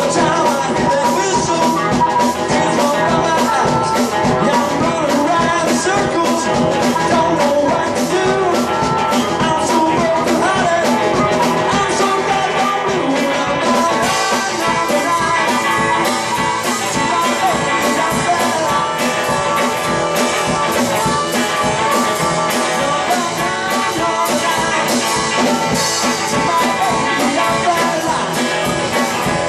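Live blues band: harmonica playing lead over electric guitar and drums keeping a steady beat.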